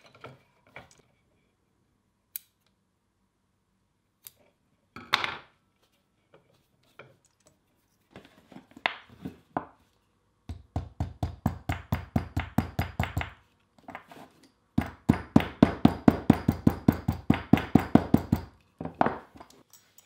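Hammer tapping a leather belt lying on a wooden bench, in two quick runs of light, even taps at about seven a second a little past halfway, the second run louder. Scattered small clicks and knocks of handling come before.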